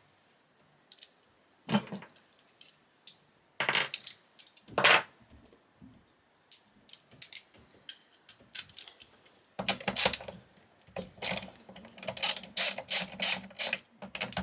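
Socket ratchet clicking as fasteners are worked loose. Scattered knocks and clicks come first, then from about ten seconds in a fast, dense run of ratchet clicks.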